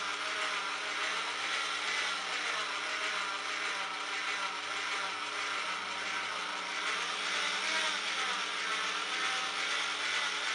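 Steady mechanical whir of a small motor slowly turning a wooden broom-handle dowel, with a faint low hum under it.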